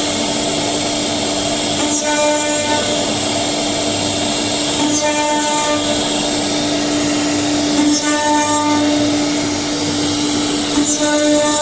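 5-axis CNC router spindle running with a steady whine while trimming the edge of a carbon-fibre part. Roughly every three seconds a short, higher-pitched cutting sound rises over it.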